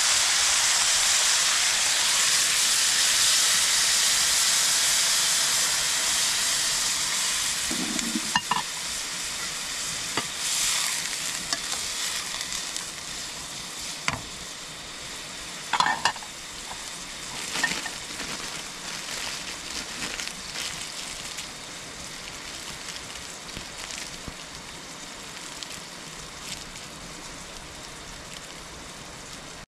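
Pork pieces frying in a wok over a wood fire, a steady sizzle that slowly dies down. A few sharp metallic clinks and knocks come through it in the middle.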